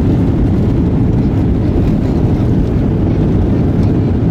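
Steady, loud rumble inside a jet airliner's cabin: engine noise and rushing air heard from a seat over the wing while the plane rolls along the runway.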